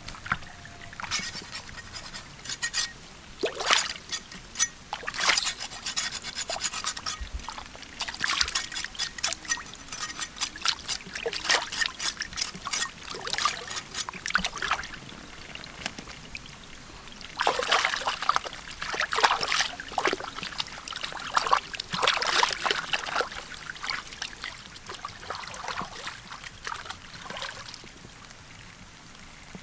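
Large knife scraping the skin of a raw duck piece in runs of quick repeated strokes with short pauses, along with rubbing and light splashing as the meat is washed in pond water.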